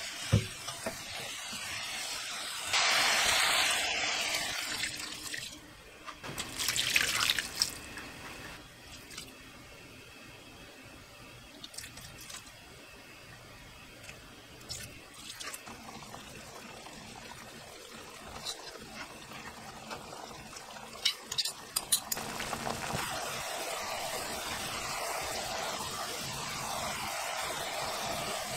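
Julienned burdock root sizzling in a hot frying pan while it is stirred, with liquid seasoning added and the sauce hissing as it cooks down. The hiss is loudest a few seconds in, drops back in the middle with a few sharp clicks of the utensils against the pan, and settles into a steady sizzle near the end.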